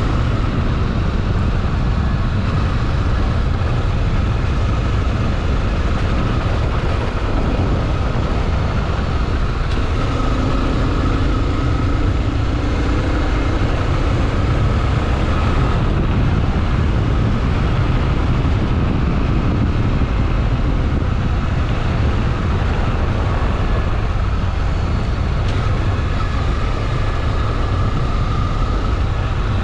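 Honda XRE 300 Rally motorcycle's single-cylinder engine running steadily within a loud, even rushing noise, its pitch drifting slowly up and down.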